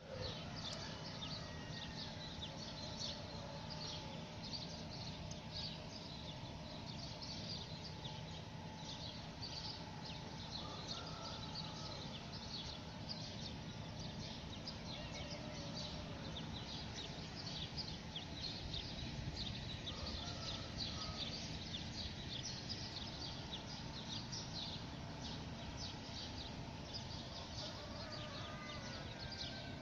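Steady rain, full of small rapid drop ticks, with birds chirping throughout and a few faint calls now and then. A low steady hum runs underneath.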